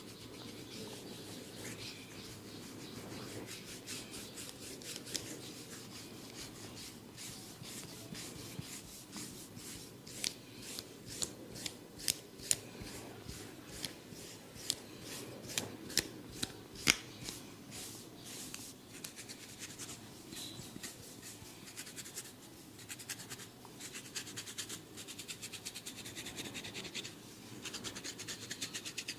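Head massage: rubbing and scratching through hair on the scalp, going on steadily, with a run of sharp clicks or snaps through the middle, the loudest near the end of that run.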